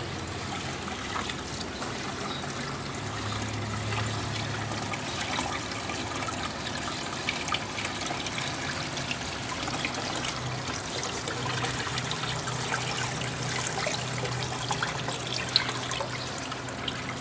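Water poured steadily from a plastic bucket through fine mesh strainers, splashing and trickling as live moina (water fleas) are sieved and rinsed. A faint low hum runs underneath.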